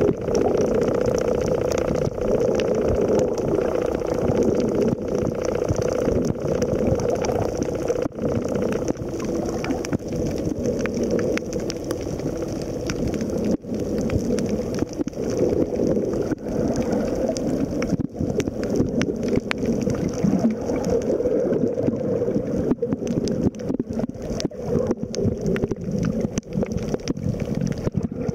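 Underwater sound picked up by a camera in its waterproof housing: a steady, muffled rush and gurgle of moving water, with scattered small clicks and crackles that grow more frequent in the second half.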